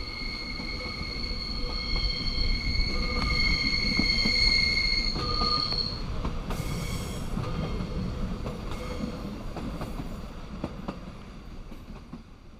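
Steel wheels of the train's carriages squealing on a curve: a steady high squeal of several tones for about six seconds over the low rumble of the rolling carriages, then a short second squeal about halfway. The rumble fades toward the end.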